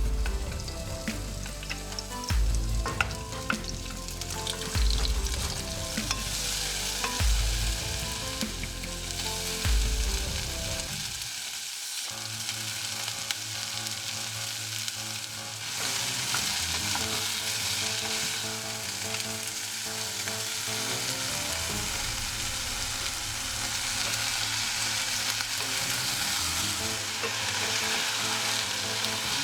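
Food sizzling in a hot frying pan as it is stirred, the sizzle growing stronger about halfway through, with background music underneath.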